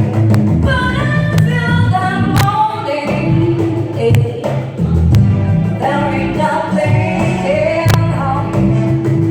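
Live band music with a singer's melody over bass and drums.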